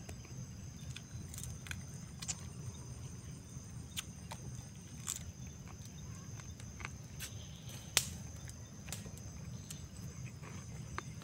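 Outdoor ambience of a steady high drone of insects over a low rumble, with scattered faint clicks and chewing from eating with a spoon, and one sharper click about eight seconds in.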